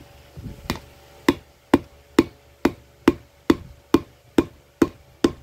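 Steady tapping on a bearing piece on the pinion shaft of a Mercedes C230 (W203) rear differential, struck with the end of a hammer, about two taps a second. The piece is tight and does not move down.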